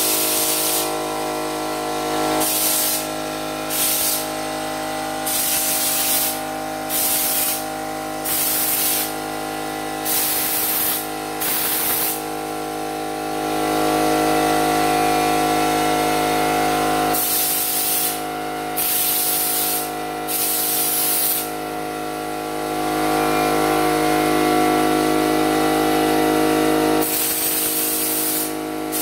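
Air compressor running steadily while a spray-on bedliner gun hisses in repeated bursts as its trigger is pulled, about a dozen sprays, most under a second and a few longer.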